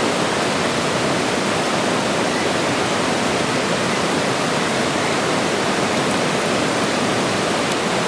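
Steady rush of running stream water, an even, unbroken hiss.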